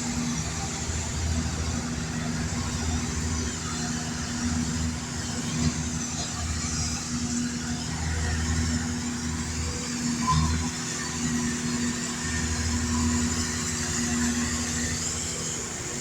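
Engine of railroad track maintenance machinery running steadily, a low even hum.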